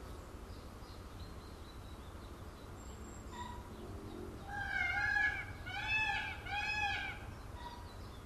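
Indian peafowl calling three times in quick succession, loud cries that each rise and fall in pitch, starting about halfway through.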